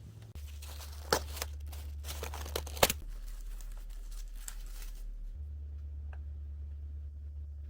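Crinkling and tearing, like packaging being handled and opened, with several sharp snaps, for about five seconds before it stops.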